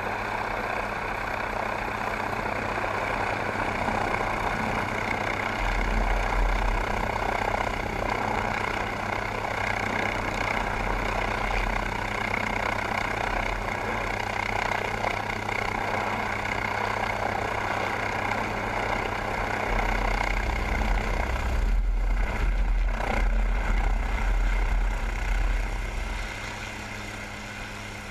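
MQ-8B Fire Scout unmanned helicopter hovering low and settling onto a ship's flight deck: steady turbine whine and rotor noise, with a deep low rumble swelling twice, most strongly in the later part. The level drops near the end as the helicopter sits down on the deck.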